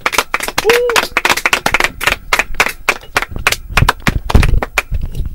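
Hands clapping in applause as a song ends, with a brief cheer about a second in.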